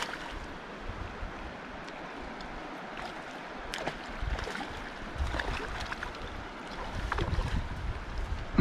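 Shallow river water rippling over stones, with wind buffeting the microphone in low gusts about four seconds in and again near the end. A short loud sound with a falling pitch comes right at the end.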